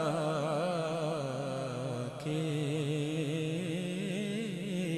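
Male voice singing a naat into a microphone, drawing out long wordless notes with a wide vibrato. The note breaks off about two seconds in and a new, lower note is held.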